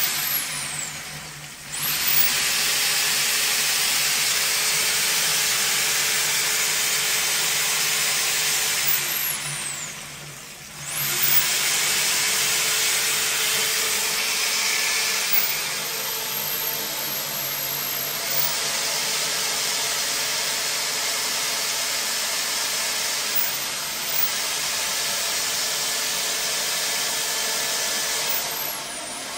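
Power drill spinning a spring-cable drain snake from its wire drum, the cable turning down a clogged floor drain. The drill stops briefly about a second in and again around ten seconds in, then runs on steadily.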